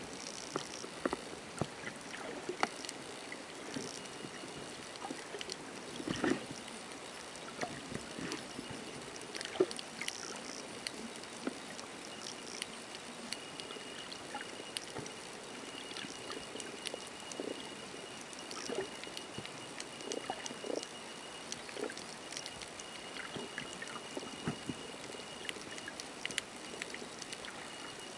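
Underwater sound picked up by a camera in the sea: a steady hiss scattered with sharp clicks and crackles and short low blips, with a faint steady high tone through the middle.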